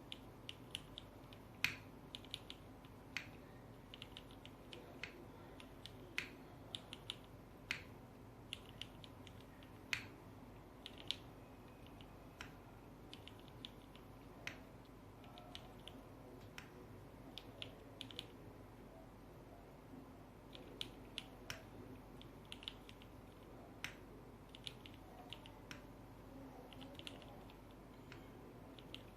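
Mechanical keyboard being typed on: a Duck Eagle V3 with lubed Cherry MX Black linear switches on a polycarbonate plate, with GMK keycaps. The keystrokes come at an uneven pace with brief pauses, over a faint steady hum.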